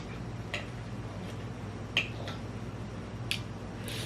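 Quiet eating sounds from a noodle mukbang: a few short, sharp mouth clicks and smacks, spaced a second or so apart, over a steady low hum.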